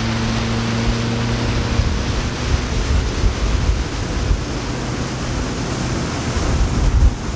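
Wind buffeting the microphone over a rushing of water, gusty with a heavy low rumble. A steady low hum fades out about two seconds in.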